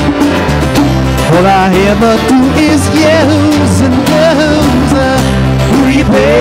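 Live acoustic rock band playing: strummed acoustic guitars, electric bass and bongos, with a sung lead vocal line that wavers and bends in pitch.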